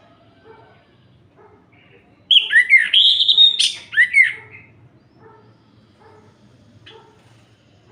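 Orange-headed thrush (anis merah) singing one loud phrase of rising and falling whistles and sharp high notes, starting about two seconds in and lasting about two and a half seconds.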